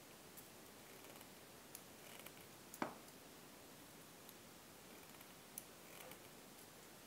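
Faint, scattered clicks of needle-nose pliers gripping and bending aluminium craft wire, with one sharper click a little under three seconds in.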